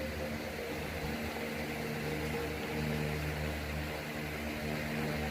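A steady mechanical hum from a running motor, its low tone strengthening and easing a little at times.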